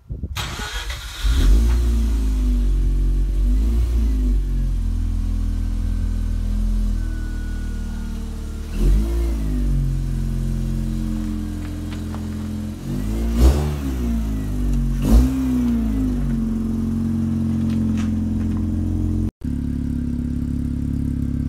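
Mazda RX-8 rotary engine starting and idling, revved in short blips several times. Near the end it settles into a steady idle.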